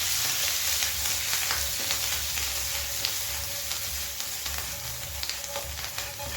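Homemade fries sizzling in butter in a pan, a steady frying hiss with scattered small crackles, a little louder in the first second or so.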